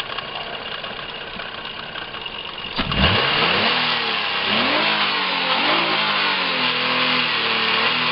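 Nissan Murano's VQ35 3.5-litre V6 idling, then revved sharply about three seconds in and blipped up and down several times. The engine has a knock that the owners think is very bad.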